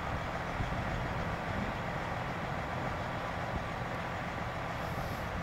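Diesel engine of a stopped coach bus idling steadily.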